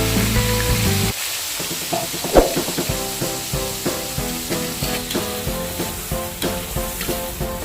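Food stir-frying in a hot pan: a steady sizzle of oil, with a few sharp knocks of the spatula as it is stirred.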